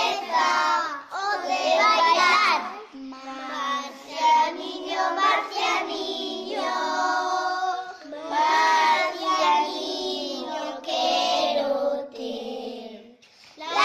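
Children's voices singing a song in short sung phrases with brief breaks between them.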